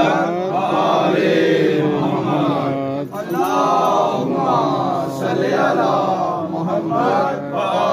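Several men chanting together, loud and continuous, with short breaks between phrases.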